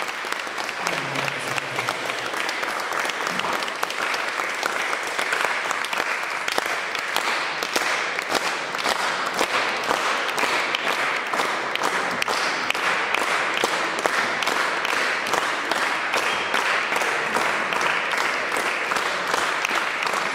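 Audience applauding steadily after a song, a dense, unbroken run of hand claps.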